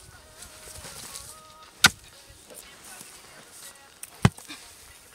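A hoe blade striking hard, dry soil twice, about two and a half seconds apart, the second blow a heavier thud, as a rodent burrow is dug open.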